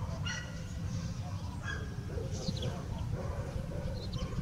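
Outdoor winter ambience: a steady low rumble of wind on the microphone, with scattered short, high, downward-sweeping chirps of small birds.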